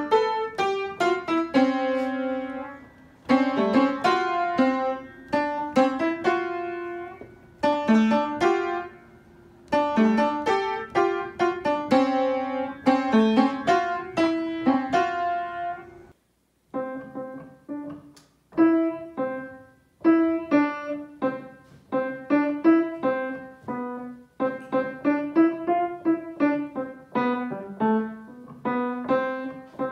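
Piano keys pressed with a cat's paws held by a person's hands, sounding short phrases of notes and chords with pauses between. After a brief gap about halfway through, a second piano carries on the same way.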